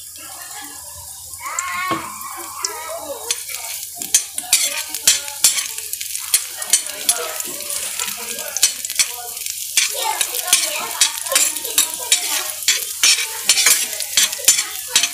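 Garlic sizzling in hot oil in a stainless steel pan while a metal spoon stirs it, scraping and clicking against the pan. The sizzle and the rapid clicks of the spoon pick up about four seconds in.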